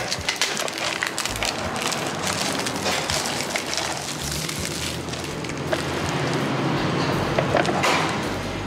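Crinkling and crackling of the thin plastic shrink-wrap being torn and pulled off a Nissin Cup Noodle cup, with the paper lid peeled back near the end.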